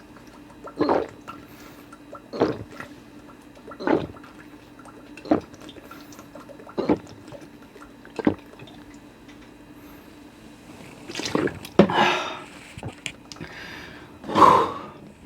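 A person gulping a sports drink straight from the bottle, close to the microphone, with one swallow about every second and a half. Near the end come a few louder, noisier sounds.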